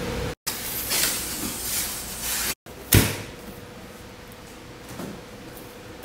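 Cardboard product boxes being handled and shifted, with scuffing and light knocks, and one sharp thump about three seconds in as a box is set down. The sound drops out briefly twice.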